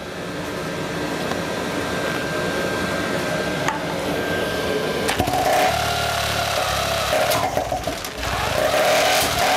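Supercharged 50cc two-stroke engine being spun over with a power tool, turning without firing, with a steady high whine in the first half. The builder takes it to be not getting fuel.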